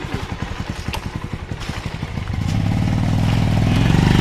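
Motorcycle engine being push-started after it would not start: it turns over in quick, even pulses, then catches a little over two seconds in and runs with a steady, louder note.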